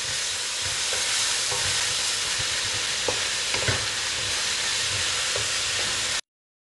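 Grated onion sizzling in hot oil in a steel pot, being fried to a light brown, with a wooden spatula stirring and scraping against the pot. The sound cuts off suddenly near the end.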